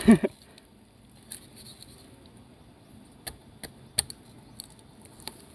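About half a dozen scattered sharp knocks and clicks of a blade chipping at the wood of an albasia tree trunk, widening a hole into a bee nest.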